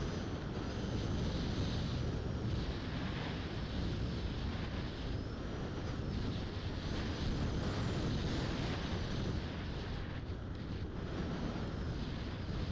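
Wind rushing and buffeting over the onboard camera of an Opterra model flying wing flying low over a field.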